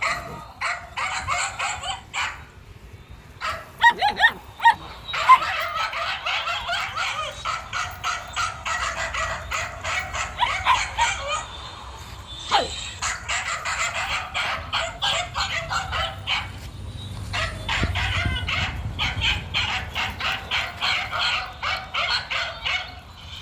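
Dogs barking rapidly and repeatedly, in long runs broken by a few short pauses.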